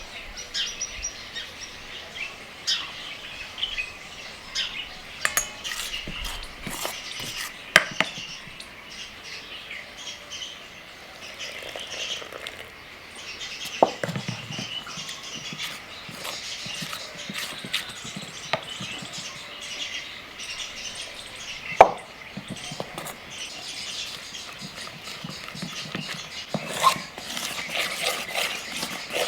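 Birds chirping continuously, with a few sharp clicks or knocks scattered through, the loudest about eight, fourteen and twenty-two seconds in.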